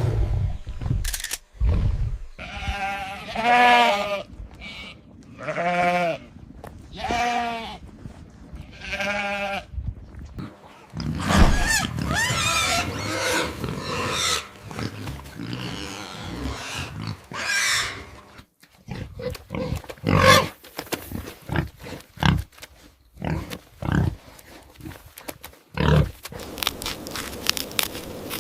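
Farm animals calling: three drawn-out pitched calls a few seconds apart, then rougher, noisier calls and scattered clicking sounds in the second half.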